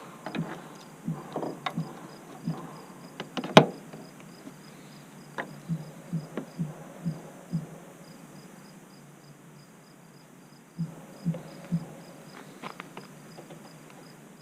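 Crickets chirping steadily, with a ratchet running in a bolt over them: short clicks and knocks in quick runs, and one sharp knock about three and a half seconds in.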